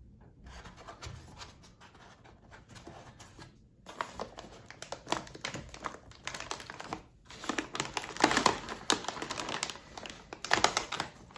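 Packaging being handled and crinkled: scattered rustles and clicks, faint at first, then a denser, louder crinkling from about four seconds in.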